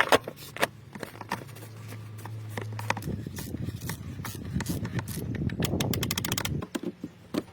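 Clicks and knocks of tools and car parts being handled during an oil change, with a low steady hum for a couple of seconds early on the first half and a quick run of rapid clicks a little before the end.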